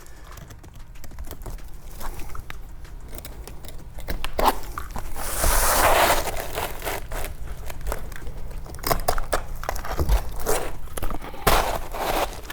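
Asphalt shingles and pipe flashing being handled and fitted on a roof: scraping, crunching and crinkling with scattered knocks. The scraping is loudest about five seconds in.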